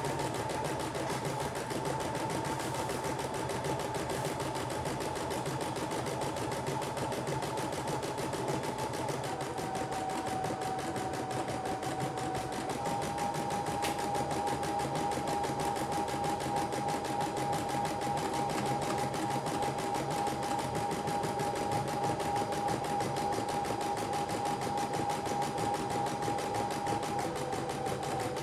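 CNY E960 embroidery machine stitching out a design: a fast, steady needle clatter over a motor whine that steps down in pitch, back up a few seconds later, and down again near the end.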